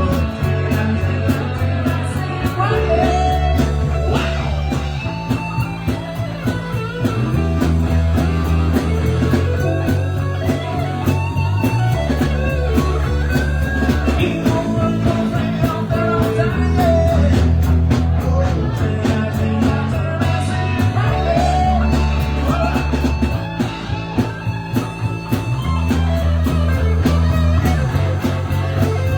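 Live rock band playing an instrumental passage: a lead guitar bends notes over a repeating bass line and a steady beat.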